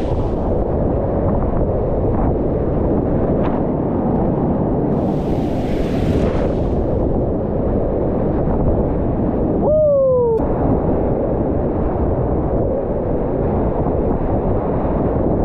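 Loud rushing roar of whitewater rapids around a small inflatable boat, with a hissing splash about five seconds in. A short sound falling in pitch comes near the ten-second mark.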